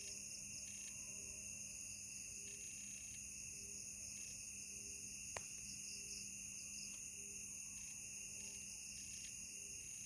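Night insect chorus of crickets trilling steadily, with a faint low note repeating about every half second beneath it. A single sharp click about five seconds in.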